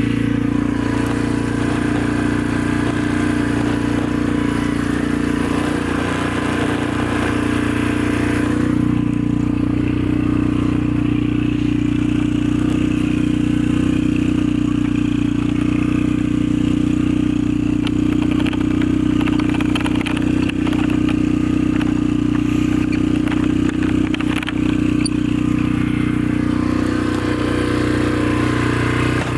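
An engine running steadily at an unchanging speed for the whole stretch, with no revving.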